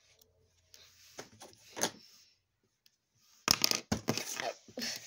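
Handling noise from a hand close to the phone's microphone: a few soft clicks, then a burst of loud clattering and rustling about three and a half seconds in.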